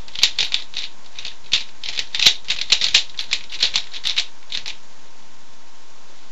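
A 3x3 Rubik's-type speedcube being turned fast with R and U moves, a quick run of irregular plastic clicks and clacks that stops about four and a half seconds in, over a steady hiss from the webcam microphone.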